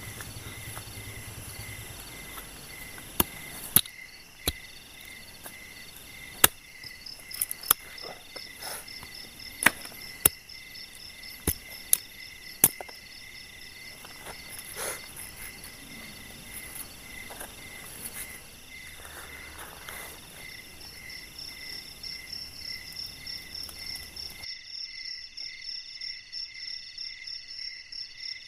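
Night chorus of crickets and other insects: several steady, pulsing trills at different pitches. Scattered sharp knocks stand out over it, about seven in the first half, and the chorus thins abruptly a few seconds before the end.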